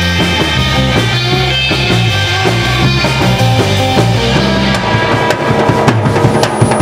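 Live instrumental surf rock band playing: electric guitar through a Vox amp over a walking electric bass line and a full drum kit. The drum hits grow sharper and more frequent in the last couple of seconds.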